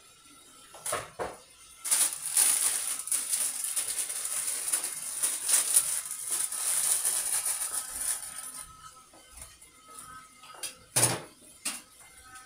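A clear plastic bag crinkling and rustling as it is handled for several seconds. A couple of light knocks come before it, and a sharper knock on the counter follows near the end.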